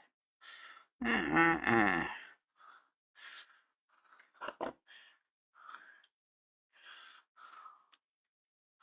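A man's wordless groan about a second in, lasting about a second, followed by a string of faint short noises of breathing and small handling.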